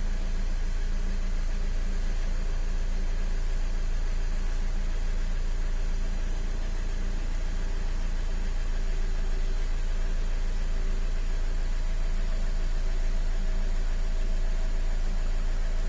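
Nissan X-Trail's 2.0 dCi four-cylinder turbodiesel idling steadily, with an even low hum and no distinct knocks.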